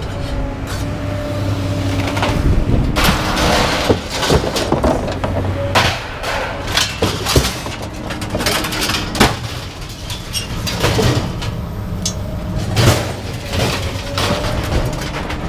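Scrap metal clanking and banging in a string of irregular knocks and crashes, over a steady low machine hum.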